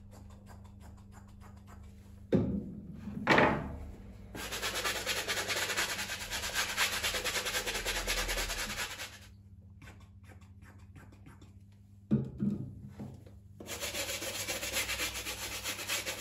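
A brush scrubbing quickly back and forth over the white sole of a leather loafer, in two long spells of rapid strokes. A couple of knocks come before each spell, one pair a few seconds in and another about three-quarters through.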